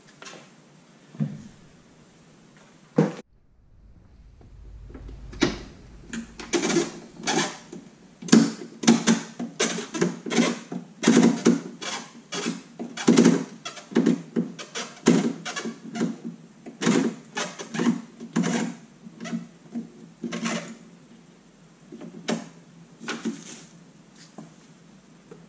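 Hard motorcycle saddlebag and plastic body parts being handled and shifted: a dense run of sharp knocks and clatters through the middle, thinning out to a few near the end.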